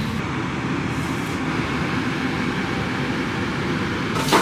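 Kitchen extractor fan running with a steady rushing hum; a sharp knock near the end.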